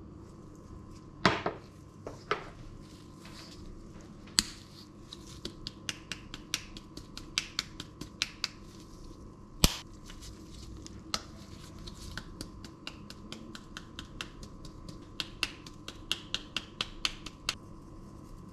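Hand spice grinders being twisted, in two runs of rapid clicking, with a few sharp single knocks of dishes and containers.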